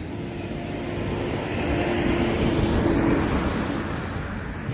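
A road vehicle passing by: a rising and falling rush of engine and tyre noise, loudest about three seconds in.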